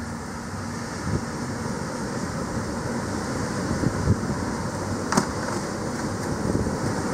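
Wind buffeting the microphone: a steady rushing noise with irregular low rumbling gusts. A single sharp click comes about five seconds in.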